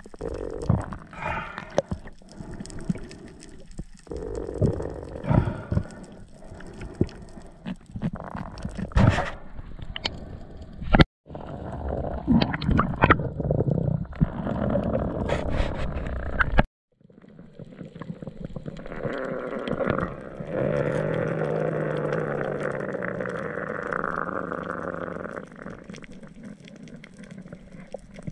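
Muffled underwater noise through a camera's waterproof housing: water swishing and knocking as a spearfisher swims with his speargun and fish stringer. It cuts off abruptly twice, and a steadier rushing stretch comes in the latter part.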